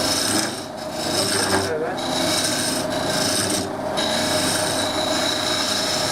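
Wood lathe running, with a parting tool scraping into a spinning green-wood cup blank over the steady hum of the lathe. The cut breaks off briefly about three times as the tool eases off the wood.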